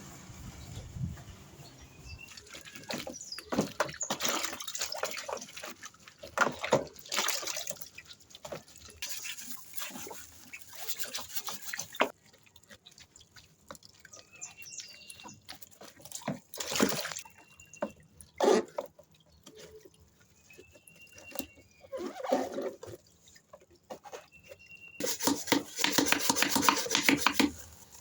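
Wet scrubbing and wiping during washing machine cleaning: irregular scraping strokes with water, then a fast, steady run of scrubbing strokes near the end. A few short high chirps sound in between.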